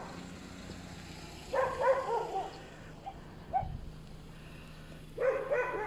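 A dog barking at a passer-by, in two short bouts of several barks: one about a second and a half in, another near the end.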